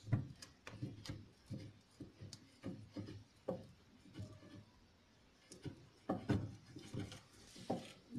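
A Siberian husky making a run of short, irregular sounds, a few a second, while nosing into a gap beside wooden furniture. There is a brief lull around the middle and louder ones again after it.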